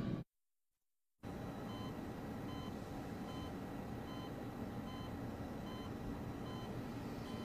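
Music cuts off into about a second of dead silence, then faint short electronic beeps repeat about every 0.8 seconds over a steady low hiss.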